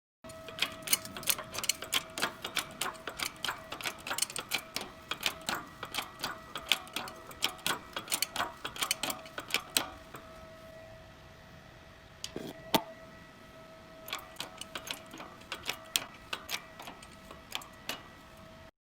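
Light hammer taps on a plasma-cut steel part, chipping the dross off its edge, a few taps a second. The taps pause midway, broken by one sharper strike, then resume, over a steady ringing tone.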